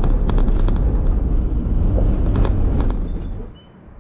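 Vehicle driving over a rough, wet dirt track, heard from inside the cab: a steady low rumble of tyres and running gear with scattered sharp knocks and rattles from the bumps. About three and a half seconds in it cuts off to quiet outdoor air with a few faint high chirps.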